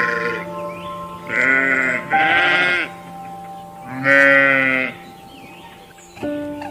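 Farm animal bleating: three wavering calls each under a second long, the second right after the first and the third about a second later.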